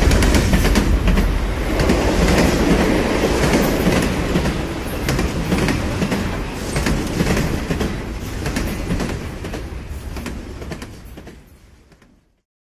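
A train running along the track, its wheels clattering over rail joints in a steady stream of clicks. It fades away over the last few seconds and stops about twelve seconds in.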